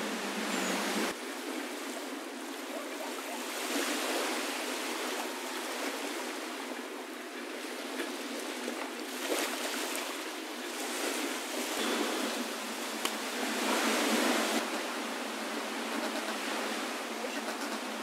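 Small waves lapping on a sandy beach: a steady wash of surf that swells and eases every few seconds.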